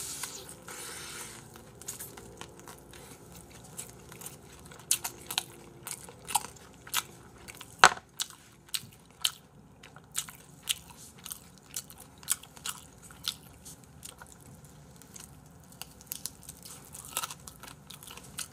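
Close-miked crunching bites and chewing of sauce-glazed fried chicken, a string of short crisp crunches with the loudest about eight seconds in.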